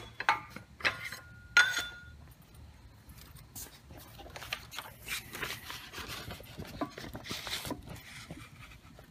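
Metal clinks and knocks as the freshly bent spar piece is worked loose from the hydraulic shop press, one with a short metallic ring about a second and a half in. Then softer rustling and handling noise as the piece and the paper plans are handled.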